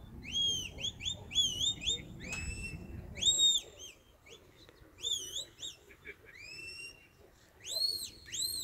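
Shepherd's whistle commands from a sheepdog handler: a run of short, sharp rising notes and several longer arched notes, the loudest about a third of the way in and near the end, steering a working sheepdog that is moving a small group of sheep.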